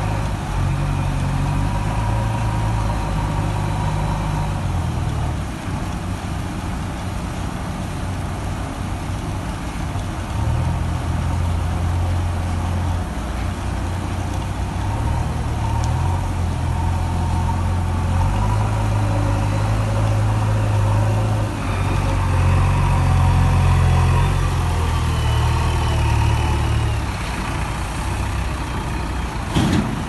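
JCB 3DX backhoe loader's diesel engine running as the loader works, its low rumble swelling and easing every few seconds as the load comes on and off.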